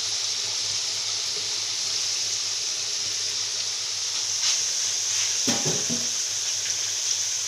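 Diced potatoes deep-frying in hot olive oil in a frying pan: a steady sizzle, with a couple of brief clicks past the middle.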